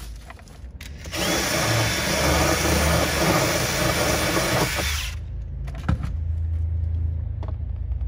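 Cordless drill running at steady speed for about four seconds with its bit in a small hole in the vehicle's sheet-metal body panel, opening the hole out for a brass air fitting, then stopping suddenly; a few light clicks follow.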